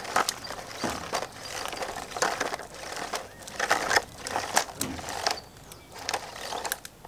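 Nylon trimmer line being wound by hand onto a Stihl AutoCut trimmer head's plastic spool: irregular scratchy rubbing and clicks as the spool is turned and the line slides over it. It quietens over the last second or so.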